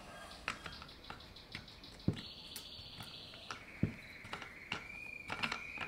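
Scattered light clicks and knocks from handling a Husqvarna Aspire battery pruning saw as its chain cover is unlocked, with a steady high tone that starts about two seconds in and drops to a lower pitch about a second and a half later.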